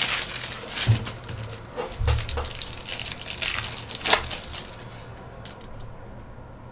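Foil wrapper of a trading card pack crinkling and tearing as it is ripped open by hand, a run of crackly rustles with a few sharper rips over the first four seconds or so. It settles into faint clicks as the stack of cards is handled.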